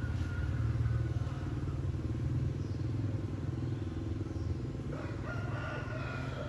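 Two long, pitched calls, one at the start and one from about five seconds in, over a steady low rumble.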